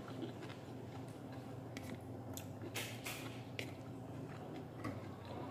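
Someone eating boiled vegetables by hand: chewing and mouth noises, with a few sharp clicks and a short louder hiss about three seconds in, over a steady low hum.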